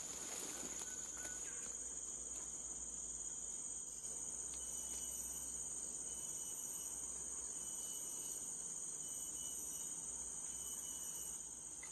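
A steady, high-pitched chorus of insects, with a second, higher insect call that pulses on and off every second or two.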